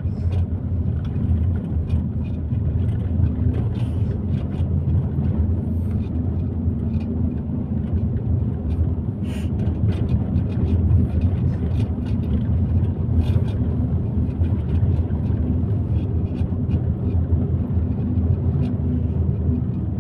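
Car interior noise while driving: engine and road rumble heard from inside the cabin, a steady low drone.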